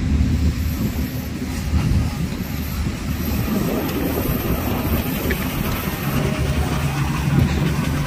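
Diesel engines of heavy construction machinery running: a steady low drone with rough mechanical noise over it. A second, steadier engine note comes in about six seconds in.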